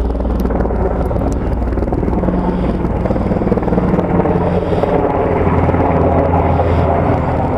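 Military helicopter flying overhead, its rotor beating steadily, growing a little louder past the middle.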